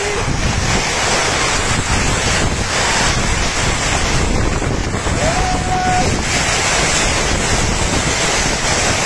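Storm wind gusting hard against the microphone: a loud, unbroken rush of wind noise.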